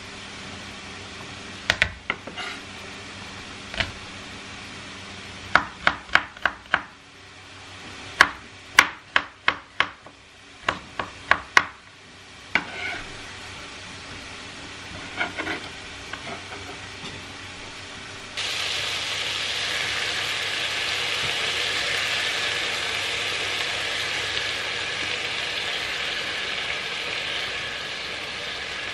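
A chef's knife chopping garlic on a wooden cutting board: sharp knocks, in quick runs near the middle of the first half. About two-thirds of the way in, a steady louder sizzle of sliced mushrooms frying in a pan starts suddenly and carries on.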